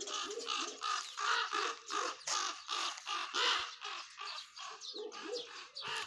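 Injured raven cawing over and over in a rapid run of short calls, alarm calls with a dog standing right over it.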